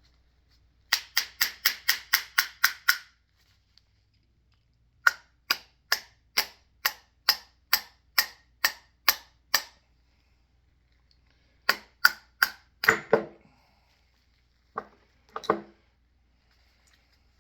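Sharp metallic clicks from hand-tool work on a mini excavator hydraulic gear pump being taken apart, coming in quick runs of about four a second with pauses between; the last few strikes near the end are duller.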